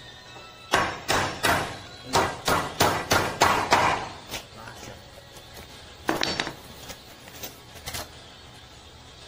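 Claw hammer driving a nail through a thin wooden batten into a door frame: about ten quick blows in some three seconds, then a few lighter knocks later on.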